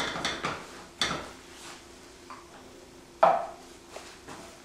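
Wooden spatula scraping and knocking against a frying pan as cooked cabbage rice is stirred and scooped, several short knocks with the sharpest a little after three seconds in.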